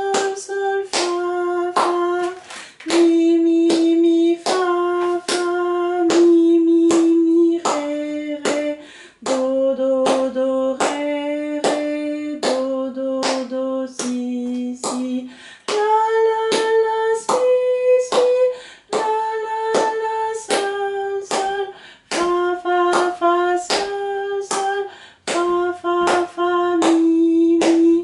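A woman singing a C major scale exercise note by note on solfège syllables (do, ré, mi, fa), with repeated notes and triplet figures. Each note is held at a steady pitch and the line climbs and falls stepwise, sung an octave lower for vocal comfort.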